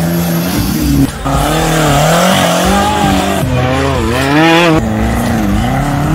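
Off-road tubular buggy engines revving hard, the pitch rising and falling again and again as the throttle is worked. The sound changes abruptly about a second in and again near five seconds, as a different buggy's engine takes over.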